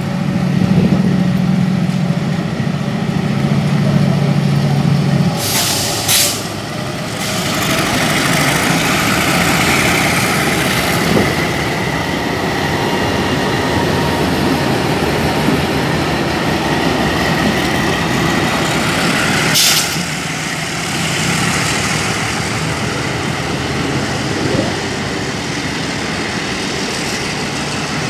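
MLW diesel-electric locomotive passing slowly. Its engine drones steadily for the first five seconds, then the wheels roll and rumble on the rails as the hauled cars go by. Two short bursts of hiss come about six seconds in, and a third near twenty seconds.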